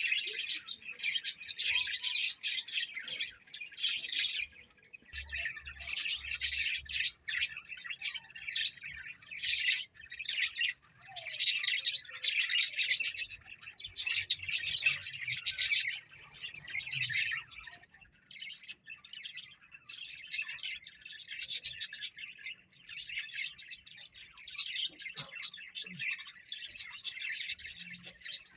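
Pet parrot chirping and twittering in rapid, high-pitched bursts of a second or two, with short gaps between.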